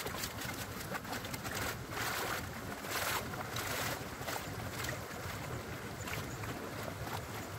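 Creek water running steadily, with swishing splashes as a gold pan of gravel is dipped and washed in the current, loudest around two and three seconds in.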